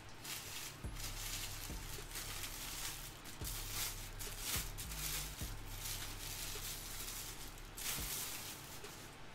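Thin plastic wrapping rustling and crinkling in irregular bursts as it is pulled off a sculpted statue part.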